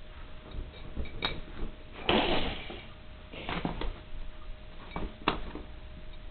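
Rustling and a few sharp knocks as a miniature pinscher gets off a bed and scrambles across the floor, with the handheld camera moved about to follow. The loudest part is a short rustle about two seconds in. A faint steady hum runs underneath.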